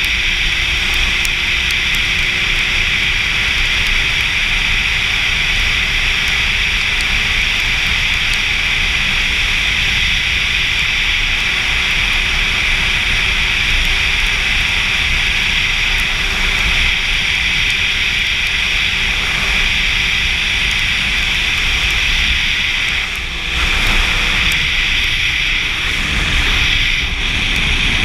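Wind rushing over the camera microphone on a sport motorcycle cruising at steady speed, with the engine's faint steady tone underneath. The noise briefly drops about three quarters of the way through.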